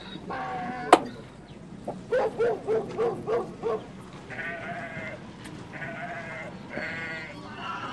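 A single sharp crack about a second in as an eggshell is broken by hand, then animal bleating: a quick run of about six short calls followed by three longer, wavering calls.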